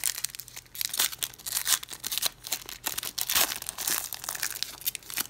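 Foil wrapper of a Panini Prizm football card pack being torn open and crinkled by hand, a dense run of sharp, irregular crackles.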